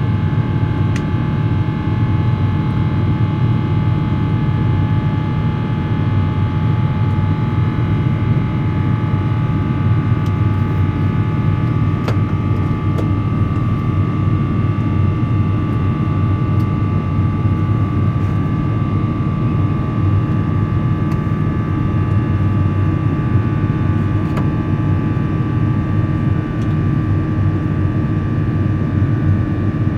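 Airbus A350-900 jet engines (Rolls-Royce Trent XWB) heard inside the cabin: a steady, loud rumble with several steady whining tones over it, unchanging throughout.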